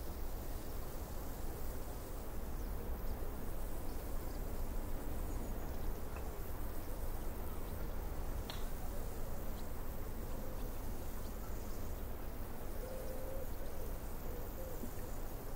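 Steady rushing noise of ocean surf breaking, with a low rumble underneath.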